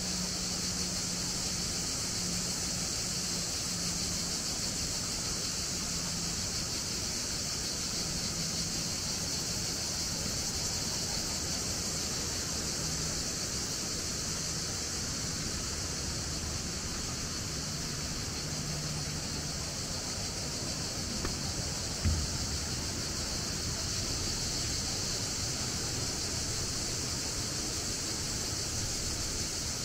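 A steady, high-pitched chorus of summer cicadas over a low, even rush of flowing water, with a single short thump about three-quarters of the way through.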